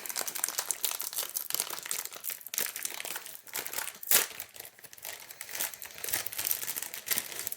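Packaging of a new typewriter ribbon being opened by hand: a run of crinkling and rustling crackles, with one sharper snap about four seconds in.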